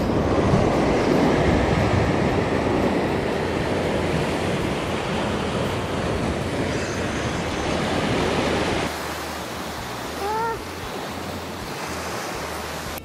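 Sea waves surging and breaking against a rocky shore, a steady rushing wash that drops a little in level about nine seconds in. A brief high call sounds just after ten seconds.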